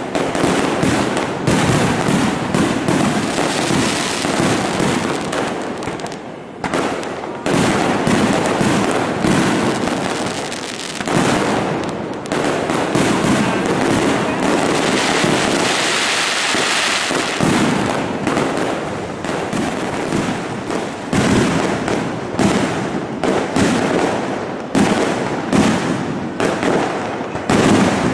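Fireworks display: aerial shells bursting in quick succession, a dense run of bangs and crackle with hardly a pause, and a spell of hissing crackle around the middle.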